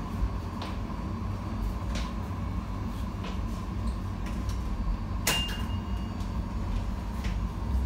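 Tram running along the street, heard from inside the car: a steady low rumble with clicks and rattles from the car's fittings, and one sharp clank about five seconds in.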